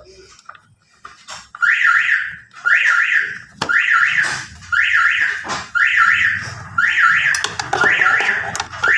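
An electronic alarm sounding a short warbling burst of rising tones about once a second, starting about one and a half seconds in, with a few sharp clicks in between.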